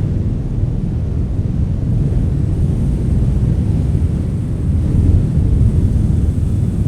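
Wind blowing as a steady, low rumble, swelling a little about five seconds in.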